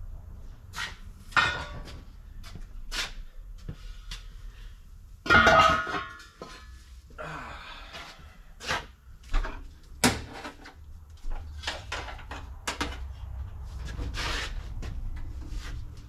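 Steel car wheels clanking and knocking as they are carried and handled beside a shot blast cabinet, a string of separate metal knocks with a low hum under them. The loudest is a ringing metal clang about five seconds in.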